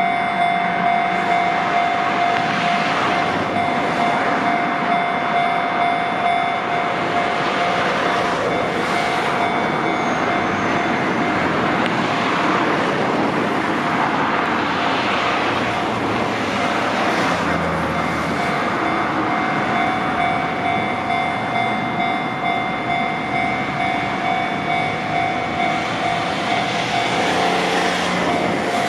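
Japanese level-crossing warning bell ringing, a repeating electronic clang about twice a second, sounding because a train is approaching. Passing vehicles rush by several times in the background.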